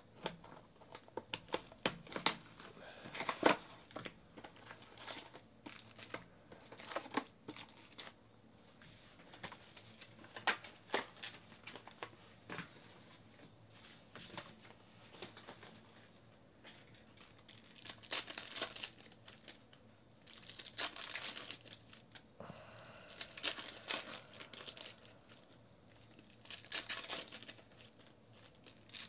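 Foil trading-card pack wrappers for 2018 Panini Select football being handled and torn open. First come short sharp clicks and crinkles as the packs are taken out and set down, then several longer bursts of crinkling as a wrapper is torn and peeled.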